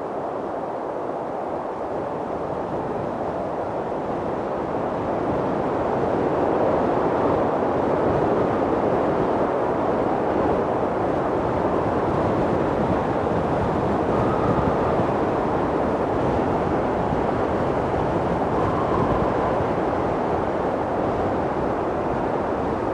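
Strong mountain wind blowing: a steady, deep rushing that swells about a quarter of the way in, with faint whistles twice in the second half.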